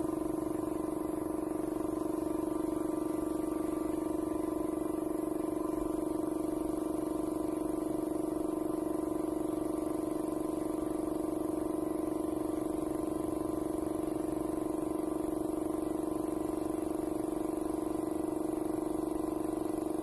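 Air compressor running steadily for a spray-paint line: a constant, even motor hum with a slight regular pulse.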